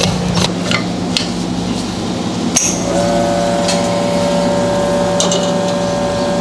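Light metal clicks as the coffee is levelled in the espresso portafilter, and a knock as the portafilter is locked into the machine. About three seconds in, the espresso machine's pump starts with a steady hum as the shot begins to pull.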